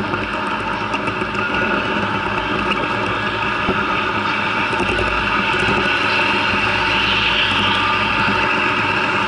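Model train running along the layout track, heard from a camera car riding on the train: a steady mechanical whir of motor and gearing with wheels rolling on the rails, growing a little louder after the first few seconds.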